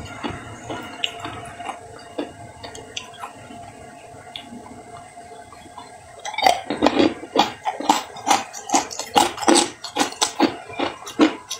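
Hard ice cubes crunching and clinking. Faint scattered clicks at first, then from about six seconds in a run of loud, sharp crunches, two or three a second.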